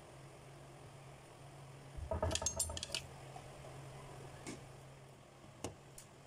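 Dishes clinking and knocking in a short rattle about two seconds in, then a few faint single clicks, over a low steady hum.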